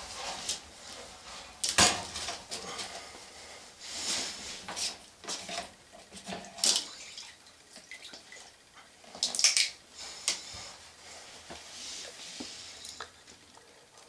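Drain pump filter of a Whirlpool Duet front-load washer being unscrewed and pulled out: irregular plastic clicks and knocks, with water left in the washer dripping and trickling out into towels. The sharpest knocks come about two seconds in and again about nine and a half seconds in.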